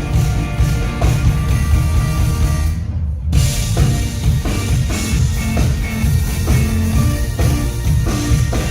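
A live rock band playing at a sound check, with a heavy, bass-rich drum kit beat driving the music.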